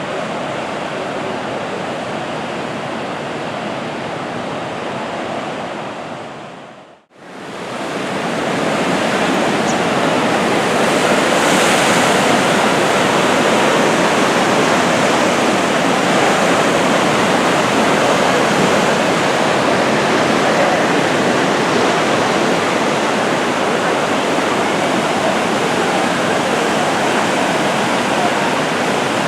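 Sea surf washing onto the beach as a steady rush of water noise. It fades out briefly about seven seconds in and comes back louder.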